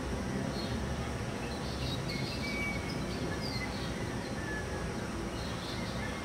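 Steady low outdoor background rumble, with small birds chirping here and there.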